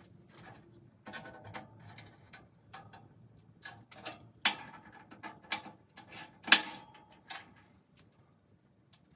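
Steel fixture clamps and posts clacking and knocking against a perforated steel welding table as they are set and tightened to clamp a welding square down. A string of sharp metallic clicks, with two louder clacks near the middle.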